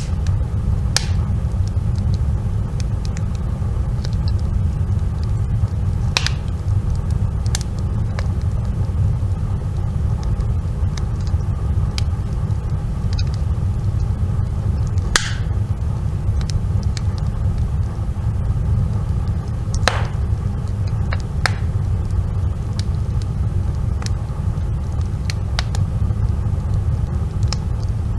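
A wood fire burning, with a steady low rumble and scattered sharp crackles and pops at irregular intervals.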